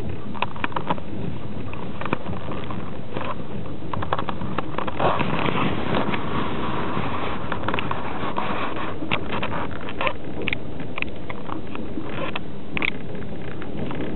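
Steady rumble of a moving passenger train, heard from inside a platskart sleeper car, with scattered short clicks and knocks.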